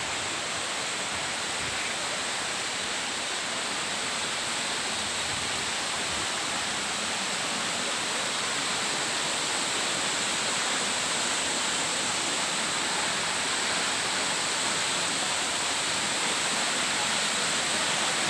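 Waterfall: a steady rush of falling water, growing slightly louder toward the end.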